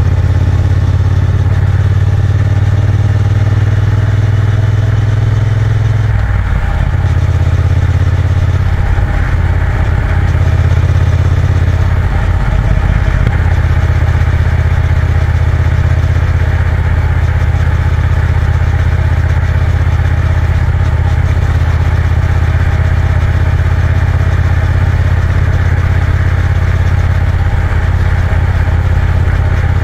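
Triumph Bonneville T120's 1200 cc parallel-twin engine running steadily as the motorcycle cruises, with wind and road noise over it. About six seconds in the engine note breaks and wavers for a couple of seconds, then settles back to a steady drone.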